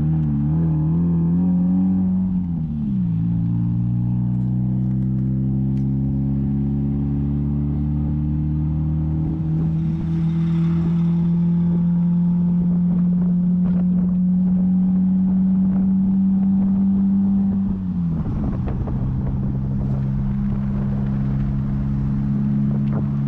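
A motor vehicle's engine running steadily, its pitch dropping about three seconds in, then creeping up slowly before dropping again near the end.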